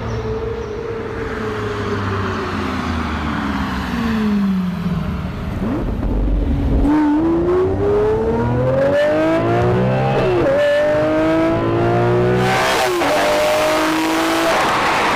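Lamborghini engine easing off with its pitch falling, then accelerating hard, its pitch climbing through the gears with two quick upshifts about ten and thirteen seconds in.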